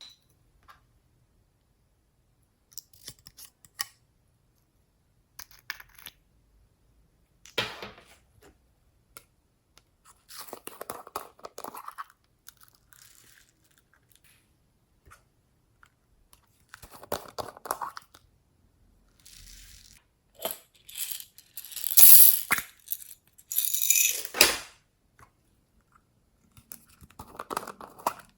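Slime being squished and kneaded by hand, in short bursts of crackling and popping with silent gaps between them. The loudest, crispest bursts come about three-quarters of the way through.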